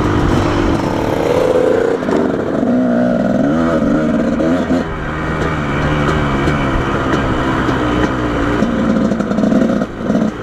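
Dirt bike engine running under way off-road, its pitch rising and falling as the throttle is worked.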